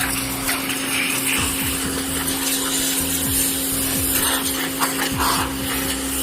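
Pressure washer running: a steady motor hum with the hiss of the water jet.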